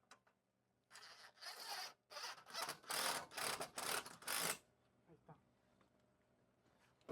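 A quick run of about eight rasping, scraping strokes over three and a half seconds, starting about a second in.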